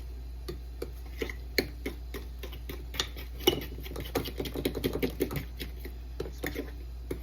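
A utensil stirring thick banana pancake batter in a bowl, clicking and tapping irregularly against the bowl, with a run of quick strokes around the middle.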